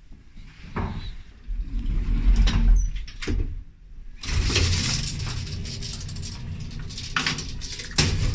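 Doors of an old-fashioned cage elevator closing: the outer door is pulled shut by hand, then the folding metal scissor gate closes on its own with a steady metallic rattle and sharp clanks near the end.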